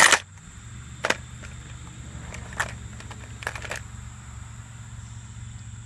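Handling noise from fishing tackle and plastic baits being picked up and moved: a sharp knock at the start, then a few softer clicks and rustles about one, two and a half and three and a half seconds in, over a steady low hum.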